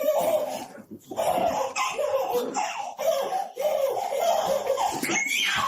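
Laughter, going on in quick choppy peals with a short break about a second in.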